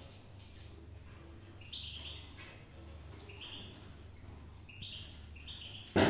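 Java sparrows giving short, high chirps every second or so, with light rustling from hands working inside a wooden nest box.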